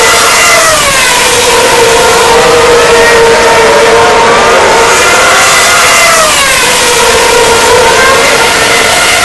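Loud Formula 1 cars with high-revving 2.4-litre V8 engines passing, several at once. Their pitch falls as each goes by and rises again as others accelerate, with marked drops near the start, about two-thirds of the way through and at the end.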